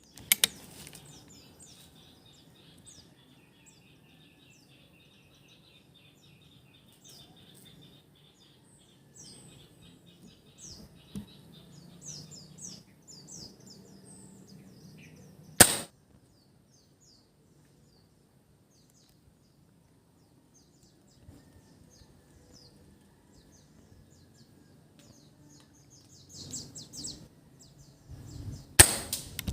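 Three sharp cracks of a PCP air rifle firing, one near the start, one midway and one near the end. Small birds chirp and tweet in between.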